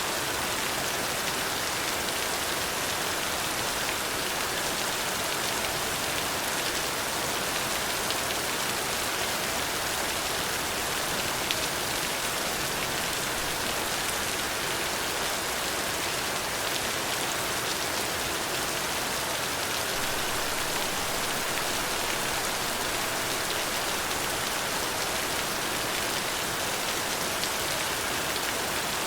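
Steady rain falling: an even hiss with no change in strength.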